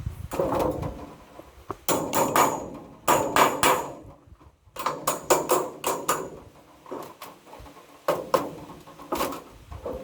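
Hammer blows struck in quick runs of several strikes, each with a short ring, with a brief pause a little before halfway through.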